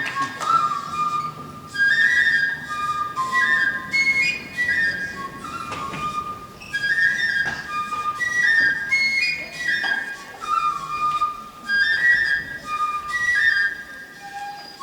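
A flute playing a melody of held notes that step up and down in pitch.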